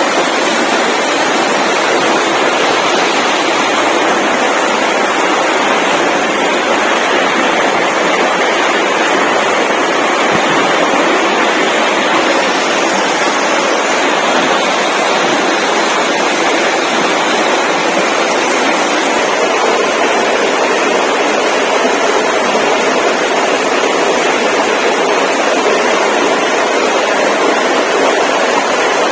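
A loud, steady rushing noise with no pitch or rhythm, even throughout.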